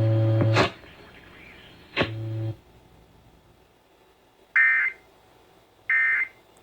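Emergency Alert System data tones: a low buzzing tone cuts off with a click about half a second in and returns briefly near two seconds. Then come two short, high warbling bursts a little over a second apart, the start of the three-burst end-of-message code that closes the test.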